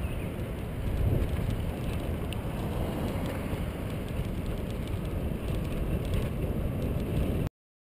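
Wind rumbling on the microphone of a camera on a moving bicycle, mixed with road noise from the tyres on cracked pavement. It cuts off abruptly near the end.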